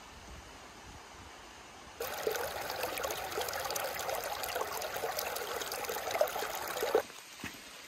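Shallow stream running over rocks close up, starting suddenly about two seconds in and cutting off sharply about a second before the end. Before it there is only a faint steady hush.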